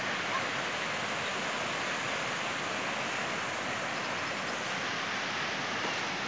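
Shallow river water rushing over a broad, flat rock slab: a steady, even rush that holds at one level.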